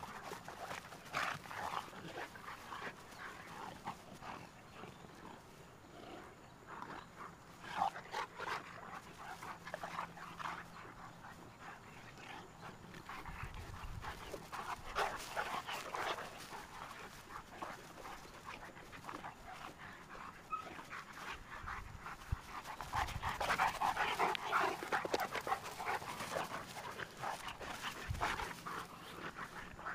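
Two Cane Corso dogs panting during rough play, in dense runs of quick breaths that grow loudest about three-quarters of the way through. A few brief low thumps come in between.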